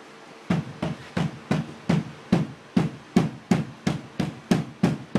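White-headed rubber mallet tapping a window's rubber gasket over and over to seat the glass in a 1963 Bristol Lodekka double-decker bus. The blows start about half a second in and come steadily, about three a second.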